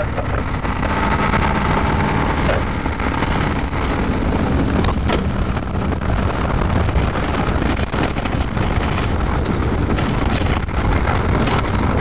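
Steady engine and road noise heard from inside a 1987 Blue Bird school bus on an International chassis, its International 9.0L diesel pulling it along with an Allison AT-545 automatic transmission. Scattered short clicks sound over the low running noise.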